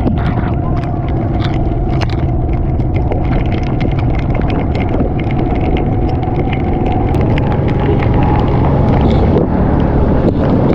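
Heavy rain on a waterlogged city street with traffic running through it: a steady low rumble of engines and moving water, with many small sharp clicks of raindrops throughout.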